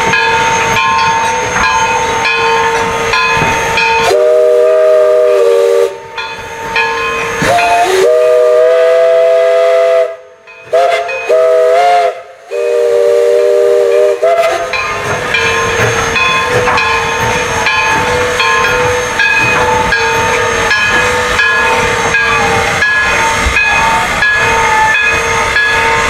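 East Broad Top #16's chime steam whistle blowing two long blasts, a short and a long: the grade-crossing signal. Around the whistle the narrow-gauge Baldwin 2-8-2 locomotive hisses steam and rolls with its running noise.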